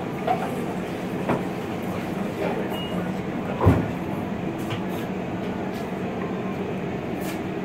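Steady low rumble of background noise at a ramen shop table, with a few light clicks of chopsticks and a ceramic spoon at the bowl and one dull knock about halfway through.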